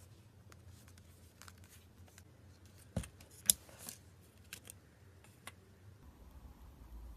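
Slime being handled for ASMR: irregular sharp clicks and crackles, the two loudest about three and three and a half seconds in.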